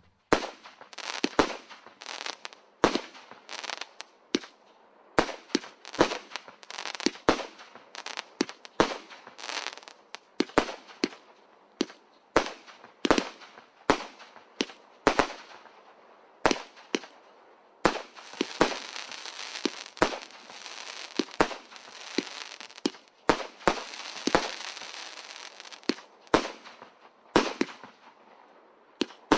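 Total FX Oceanic multi-shot firework cake firing: a long run of sharp bangs, at times several a second, with stretches of dense crackling in the second half.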